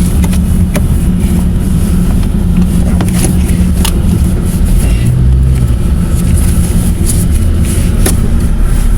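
A vehicle running with a steady low rumble. Its pitch rises briefly about five seconds in, and scattered sharp clicks sound over it.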